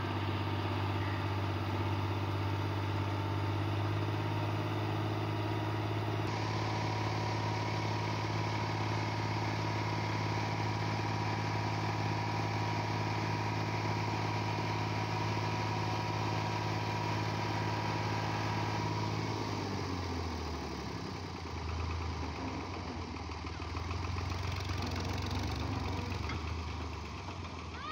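Diesel farm tractor engine running steadily at raised revs while its hydraulic lift tips a loaded trolley. About twenty seconds in, the engine note drops and wavers.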